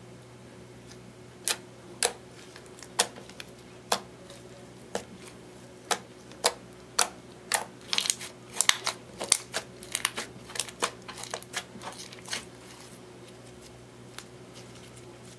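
Glittery clear slime being squeezed and poked by hand, giving sharp clicks and pops from air trapped in it: about one a second at first, then quicker and bunched together, stopping near the end as it is stretched out.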